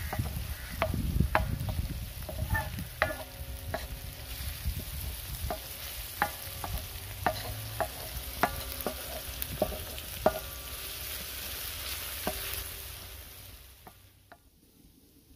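Chopped onion, garlic and ginger sizzling in oil on a large metal tawa, stirred and scraped with a wooden spatula that knocks sharply against the plate about once a second. They are being softened to cook off their rawness without browning. The sound fades out near the end.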